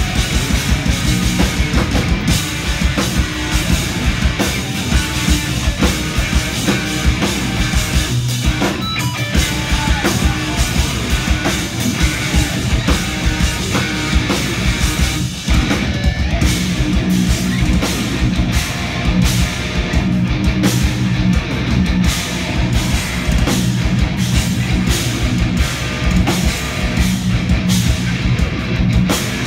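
Live instrumental progressive metal played loud by two eight-string electric guitars and a drum kit, with fast, dense drumming throughout. The band drops out for a moment about 15 seconds in.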